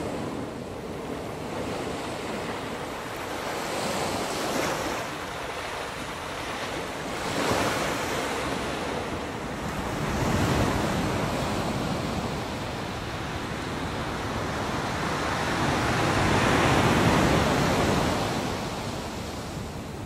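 Ocean surf: waves breaking and washing up a beach, rising and falling in surges every few seconds, with the largest swell near the end.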